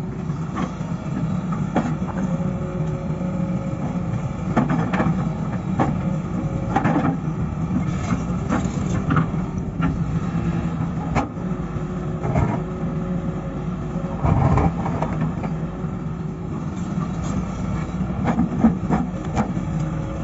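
Crawler excavator's diesel engine running steadily, with repeated clanks and scrapes as the bucket works against rock and soil.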